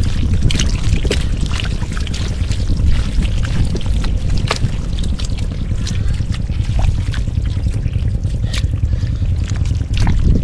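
Water splashing and trickling, with many small sharp splashes and knocks over a steady low rumble.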